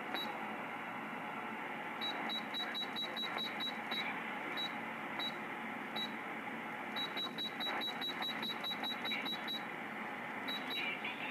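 Galaxy DX2527 radio giving short high key beeps, one per step, as its frequency is stepped upward. The beeps come singly and in quick runs of about four a second, over a steady static hiss from the receiver's speaker.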